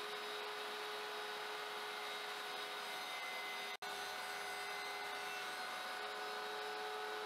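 Steady motor hum with a constant whine, unbroken except for a momentary dropout almost four seconds in.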